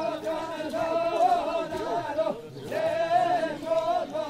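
Male voice singing a govend dance song in long, wavering held notes, with a short break about two seconds in.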